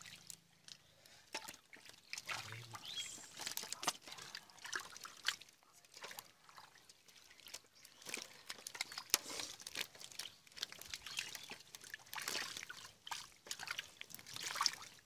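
Hands and feet working through shallow muddy water and soft mud, making irregular squelches, slaps and small splashes.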